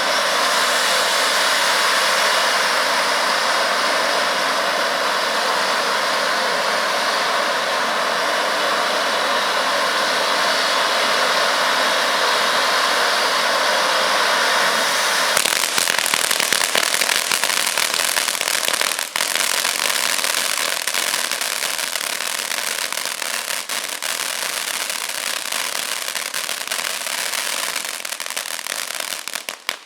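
Ground firework fountain burning with a steady, loud hiss of spraying sparks; about halfway through it changes to dense crackling, and it cuts off at the very end.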